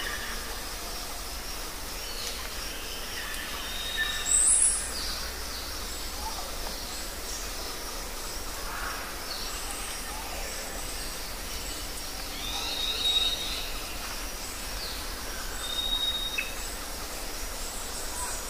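Outdoor ambience: a steady background hiss with scattered bird calls, short high whistled notes and chirps. The loudest is a sharp high call about four seconds in.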